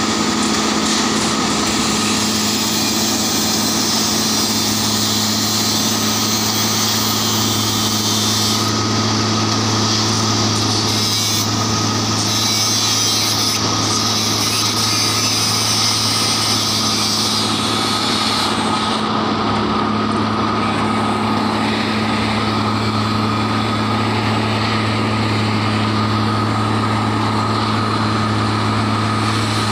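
Diesel engine of a 09-32 CSM track tamping machine running steadily as it works along the track, with a steady low hum and a high hiss over it that fades about two-thirds of the way through.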